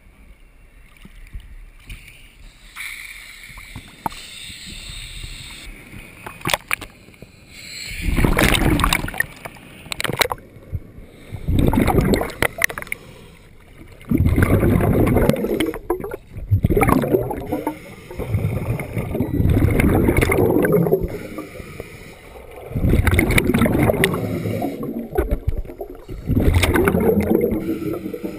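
Scuba exhaled air bubbling out of a regulator, heard underwater through a waterproof camera housing. Loud gurgling bursts come about every three seconds, in the rhythm of breathing, starting about eight seconds in.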